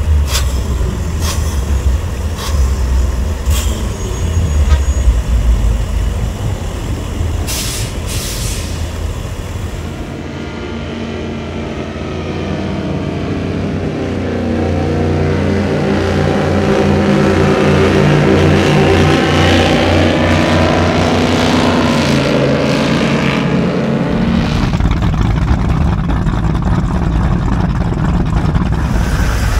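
Powerboat engines rumbling as a boat cruises slowly through the inlet, growing louder as it passes and peaking about two-thirds of the way in. A few sharp clicks sound in the first several seconds.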